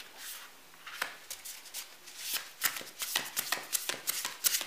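Tarot cards being handled on a table: sliding, flicking and tapping together in a run of short crisp clicks that grows busier about halfway through.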